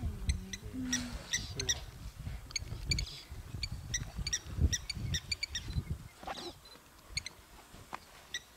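Birds at a waterhole giving many short, high, repeated pips, over a low uneven rumble with a few dull thumps.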